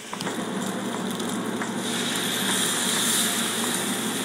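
Sauce poured into a hot pan of browning chicken wings, sizzling and spitting as it hits the pan. The sizzle swells about two seconds in.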